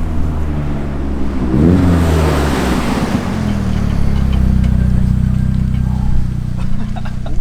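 Car engine revving up briefly about two seconds in, then settling to run steadily.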